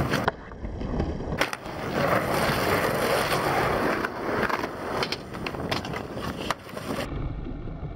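Skateboard wheels rolling on concrete, with several sharp clacks of the board hitting the ground and a ledge during tricks. Near the end the sound turns duller.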